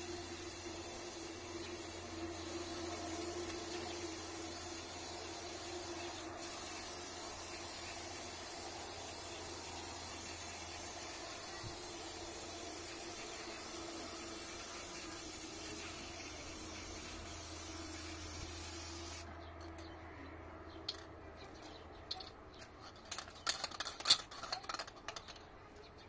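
Aerosol spray-paint can hissing steadily as red paint is sprayed onto a wall, cutting off abruptly about three-quarters of the way through. A quick series of sharp clicks and rattles follows near the end.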